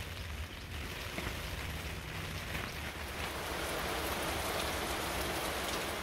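Heavy rain pouring down in a sudden downpour: a dense, steady hiss of falling drops that grows a little louder in the second half.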